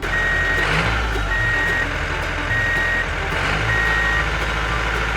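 Truck reversing alarm beeping at an even pace, four beeps in a row, over a steady low engine-like rumble.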